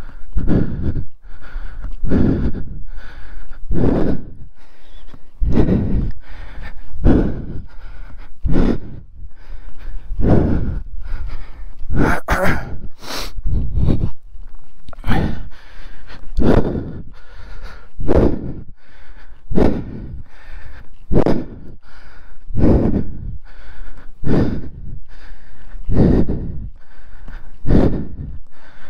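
A person breathing hard and fast close to the microphone, loud breaths repeating roughly once a second without a break.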